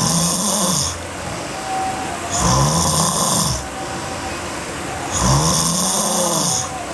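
A sleeping girl snoring hard: three loud snores about every two and a half seconds, each with a drone that rises then falls in pitch and a hiss, with quieter breathing between.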